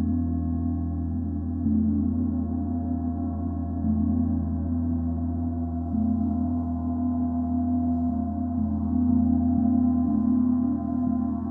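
Large hanging gong played with soft, regular mallet strokes about every two seconds. Each stroke feeds a sustained, humming wash of overlapping tones that keeps ringing and building between strokes.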